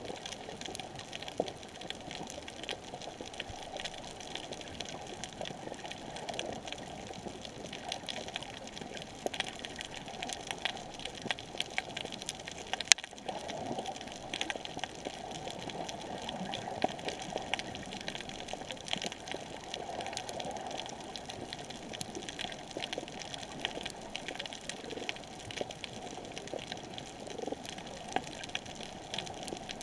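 Underwater coral reef ambience: a steady wash of water noise with dense crackling clicks throughout, and one louder click about thirteen seconds in.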